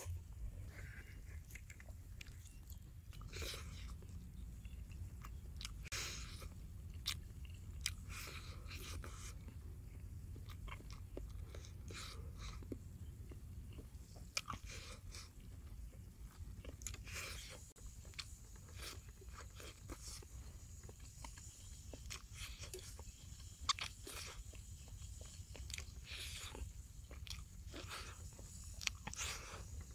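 A person biting and chewing pieces of a crisp fried sausage-and-egg pancake, with many short crunches and crackles throughout. A steady low rumble runs underneath.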